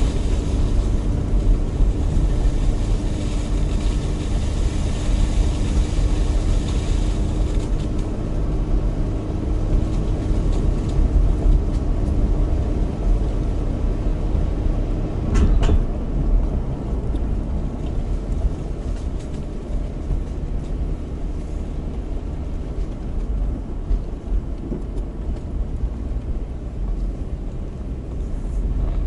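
Car driving slowly uphill on a forest road with its four-speed automatic held in second gear: steady engine and tyre rumble heard from inside the cabin. A faint steady hum stops about halfway through, where a single brief knock sounds.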